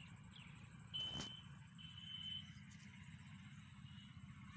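Quiet outdoor ambience: a low steady rumble with a few faint, falling high chirps at the start. About a second in there is a brief tap together with a short high whistle, and a second short whistle follows about a second later.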